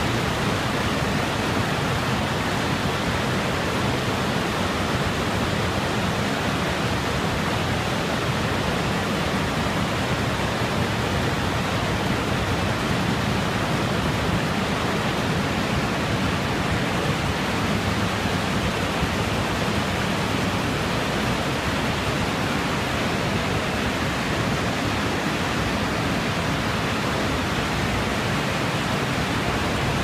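Hose fibre-braiding machines running on a production line: a steady, dense mechanical din that holds at the same level throughout.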